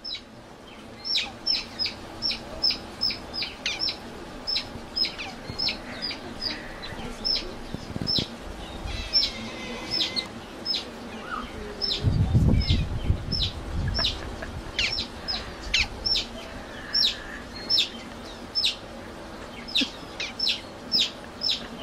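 Otter chirping: a long run of short, high-pitched squeaks, each falling in pitch, about two to three a second with a few short pauses. A low rumble comes in around the middle.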